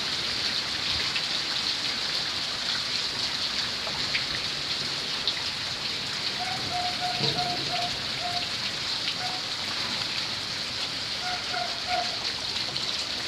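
Steady hiss of rain falling on a water-covered concrete floor. Twice, about halfway through and again near the end, a run of short high-pitched notes sounds over it.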